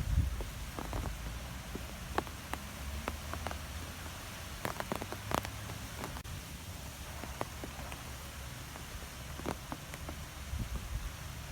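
Wind blowing in trees, with a steady low rumble and many scattered light ticks and taps.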